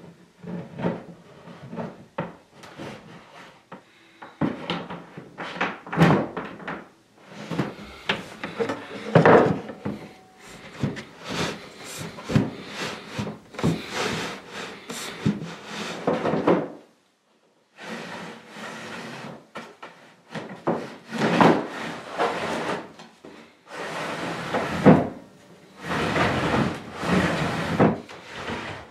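Wooden rosewood tambour door being slid and worked into its waxed cabinet tracks: rubbing and sliding of the slats, with many clacks and knocks of wood on wood. There is a short break about two-thirds of the way through.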